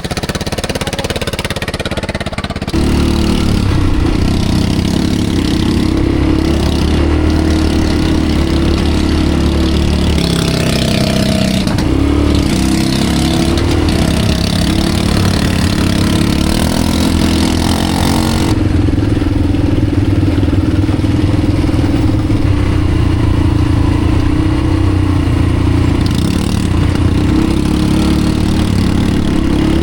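ATV engine running, its pitch rising and falling as the throttle changes; it gets louder about three seconds in.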